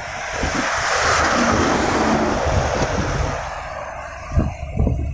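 Passing traffic heard from a moving motorcycle: a rush of tyre and engine noise from a vehicle going by close alongside, swelling and fading over about three seconds. Under it, the wind buffets the microphone, with a couple of sharper bumps near the end.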